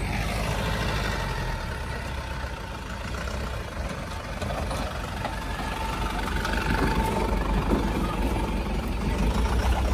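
Tata 407 4x4 light truck's diesel engine running at low speed as the truck moves slowly along a dirt track, growing louder near the end as it comes close by.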